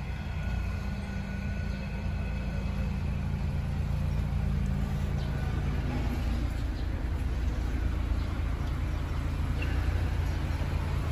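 A motor vehicle engine running steadily, a low even hum with traffic noise around it.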